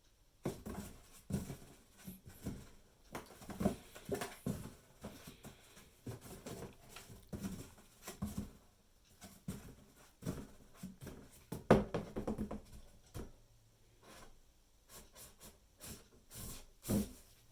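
A pet scuffling with a Slinky Dog toy: irregular knocks, thumps and pattering scuffs. The loudest knock comes about two-thirds of the way through.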